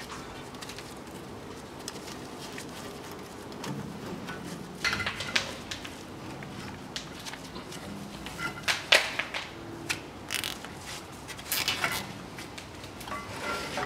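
Scattered clicks and light knocks from handling a Land Rover Defender's rear brake caliper as it is hung from the coil spring with a nylon cable tie, with a few sharper clicks in the second half.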